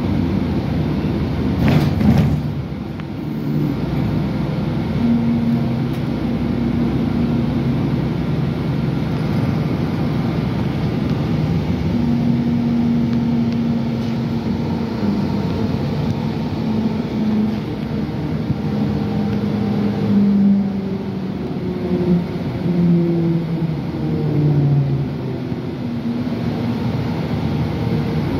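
Interior of a moving Metro bus: steady engine and road noise, the engine's pitch holding and then gliding up and down as the bus speeds up and slows. A brief bump about two seconds in.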